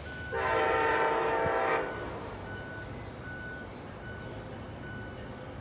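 Train horn sounding one long blast of about a second and a half, a chord of several tones, from a train not yet at the platform.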